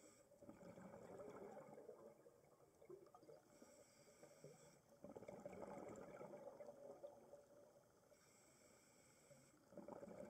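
Faint scuba regulator breathing heard underwater: a thin hissing inhale alternates with a bubbling burst of exhaled air, about every four to five seconds.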